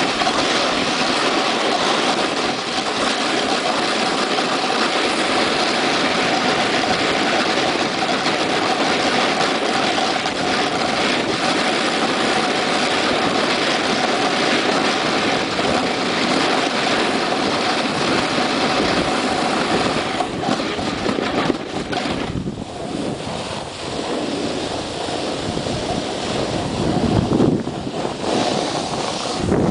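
Steady rushing noise of wind on the microphone and a snowboard sliding over snow while riding downhill, turning uneven about twenty seconds in.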